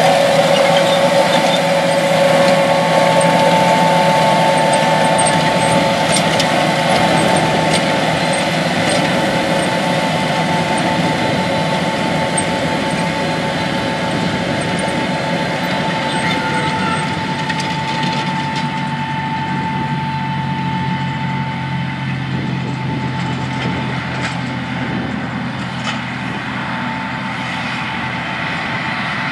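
John Deere 8370RT track tractor and its 24-row 1775NT planter running steadily while planting, with a steady whine over the machinery noise that stops about three quarters of the way through. The sound grows gradually quieter.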